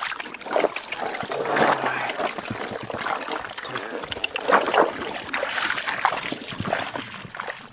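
Muddy water splashing and sloshing in a plastic tub of live catfish, with water streaming and dripping off the tub as it is lifted.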